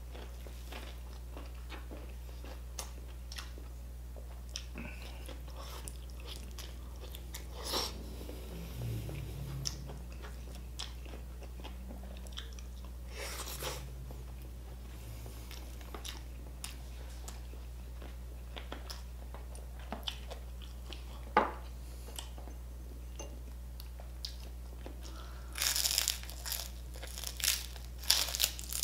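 Close-miked eating: chewing and small mouth clicks while eating rice by hand, with a few louder crunches, then a run of loud crunching bites into crispy-skinned lechon kawali (fried pork belly) near the end.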